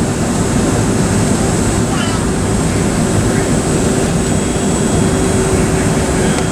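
Steady cabin noise inside a Boeing 757-200 with its engines running: an even, loud rush with a constant hum-tone underneath that does not change.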